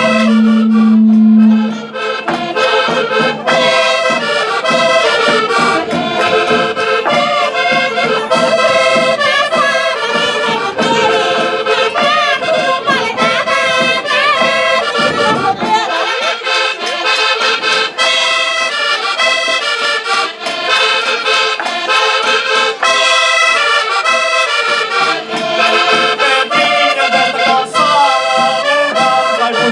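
Portuguese Minho folk music led by accordion, playing a traditional dance tune. The low accompaniment drops out about halfway through.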